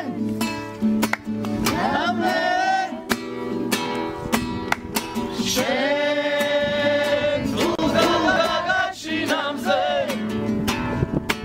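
Acoustic guitar played while several men sing along together, holding long notes, with sharp hand claps through it.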